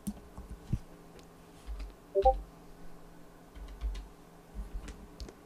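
Computer keyboard typing: a few scattered, light key taps with soft low thumps among them. The loudest is a short knock about two seconds in.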